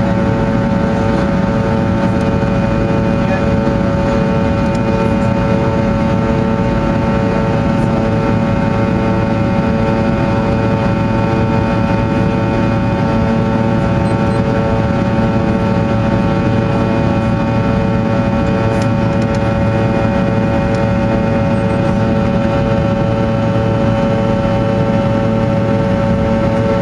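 Fokker 100's rear-mounted Rolls-Royce Tay turbofan engines heard from inside the cabin: a loud, steady drone made of several steady tones over a deep rumble, with one hum that throbs regularly.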